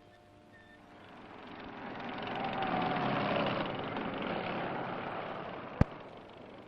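A passing vehicle's engine noise swells up over about two seconds and then fades away, with a faint falling whine at its loudest. A single sharp click comes about a second before the end.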